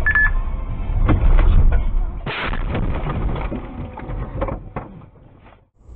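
A car crash heard from inside the car: a brief high beep, then a run of heavy knocks and crunches, loudest about two seconds in, tailing off into a few lighter knocks.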